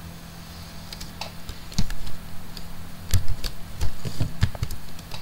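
Typing on a computer keyboard: a handful of irregular key clicks that start about a second in and bunch up later, over a steady low hum.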